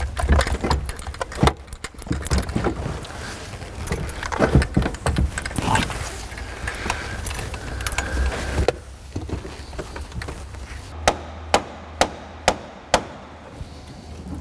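Irregular knocks, clunks and rattles of a steering column being worked loose and lifted out from under a truck's dashboard, followed near the end by five sharp clicks about half a second apart.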